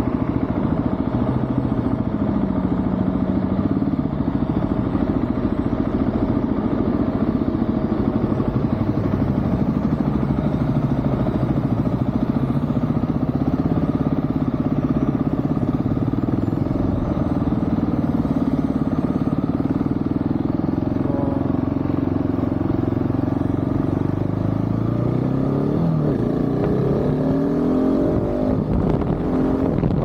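Supermoto motorcycle engine running steadily under the rider, heard from on the bike. Around twenty-four seconds in, the revs rise as it accelerates, while a large coach goes by close alongside near the end.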